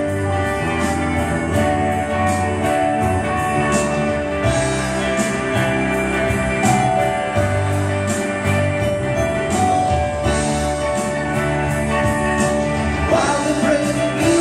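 Praise band playing an instrumental break: strummed acoustic guitars and electric guitar over a steady beat. A male voice comes back in singing near the end.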